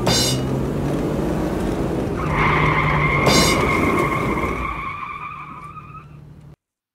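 A motor car sound effect: an engine running with a low steady hum and a high tyre squeal that comes in about two seconds in and holds, all fading out smoothly near the end.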